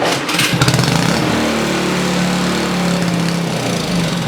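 A small gasoline engine on a 20-inch snowblower catching and running unchoked, its speed picking up and steadying about a second and a half in. This is a good sign that the engine now runs on gas after repair.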